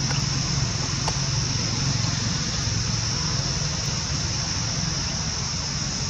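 Steady high-pitched insect chorus, a continuous shrill drone with no breaks, over a low steady rumble.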